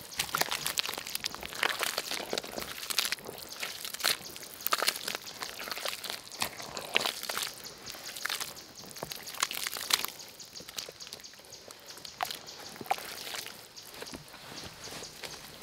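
Hands squelching and kneading wet mud in a water-filled hole in the ground: irregular wet squishes and slaps, busy for the first ten seconds or so, then sparser.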